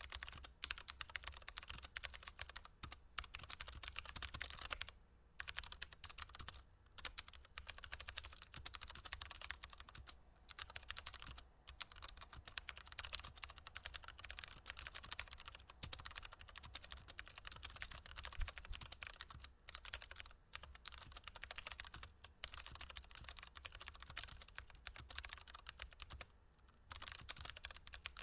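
Continuous fast typing on a mechanical keyboard: a dense patter of key clicks, broken by short pauses every few seconds.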